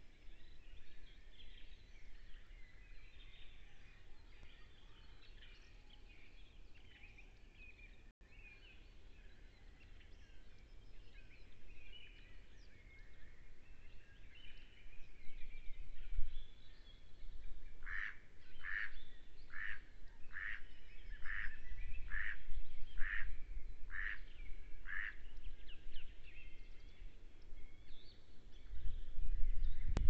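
Small woodland birds singing and chirping continuously. A run of about nine louder, evenly spaced calls, a little over one a second, comes about two-thirds of the way through. A low rumble builds near the end.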